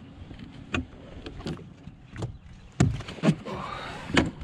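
Knocks and clicks of a fish and gear being handled on a fishing boat's deck: a series of irregular sharp knocks, louder in the second half.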